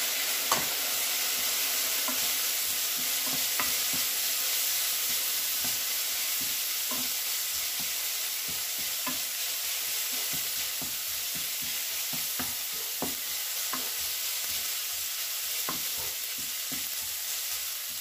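Sliced onions and minced garlic sizzling in hot oil in a non-stick frying pan, a steady high hiss, while a wooden spatula stirs them with frequent irregular taps and scrapes against the pan. The aromatics are being sautéed toward golden brown.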